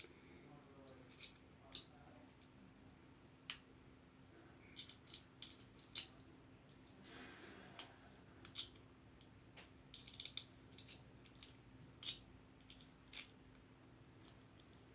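Lock picks working inside a Master Lock padlock: small metallic clicks and scrapes, a dozen or so at irregular intervals, with a brief soft rustle about halfway through.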